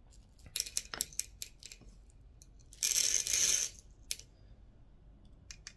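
Small steel shot pellets from a 16-gram steel shotgun cartridge being tipped into a shallow dish: scattered sharp clicks and rattles, then a dense rush of pellets pouring about three seconds in, with a few more clicks near the end.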